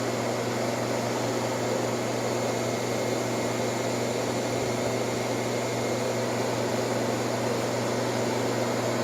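1958 Carrier 4,500 BTU window air conditioner running steadily in cooling mode with its compressor on: an even rush of air from the blower over a low, steady hum.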